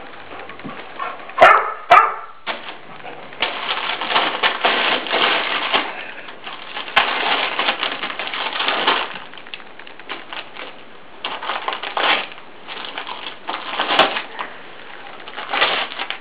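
Dog ripping and crinkling gift-wrapping paper, rustling in long uneven stretches with short pauses. A brief louder noise comes about a second and a half in.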